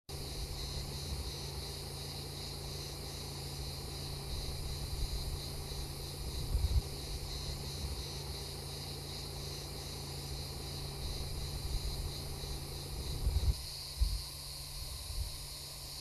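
Steady insect chorus, a shrill, finely pulsing buzz, over a low rumble with a few dull bumps, the strongest about two-thirds of the way in and near the end.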